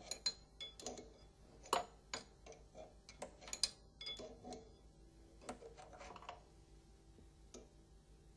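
Faint, irregular metallic clicks and taps of an open-end spanner being set on and turned against the tube fittings in a pump's seal housing, a few clicks a second, thinning out after about six and a half seconds.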